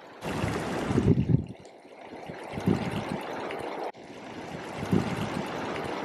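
A small creek running and splashing over rocks into a shallow pool, a steady rush that jumps abruptly in level a few times.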